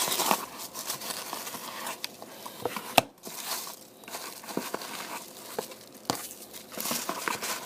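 Mail package being unwrapped by hand: wrapping crinkling and tearing in irregular rustles, with a sharp click about three seconds in.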